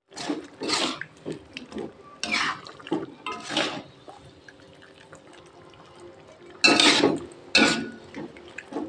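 Noodles and broth being stirred in a metal wok: irregular wet sloshes and scrapes of metal on the pan, coming in short bursts, the loudest pair about two-thirds of the way through.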